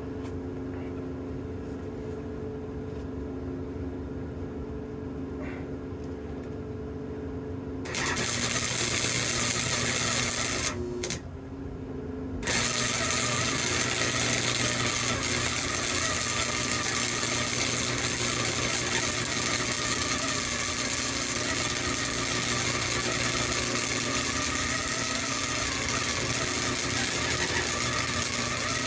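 Flux-core wire-feed welder at work on rebar. First its steady hum, then about eight seconds in the arc strikes with an even, loud crackling sizzle, stops briefly a few seconds later, and starts again for a long continuous bead.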